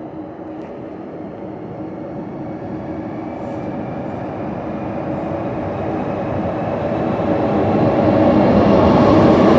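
Departing SJ night train, likely no. 92, running past with a steady hum of several held tones over rolling noise. It grows steadily louder as it draws nearer.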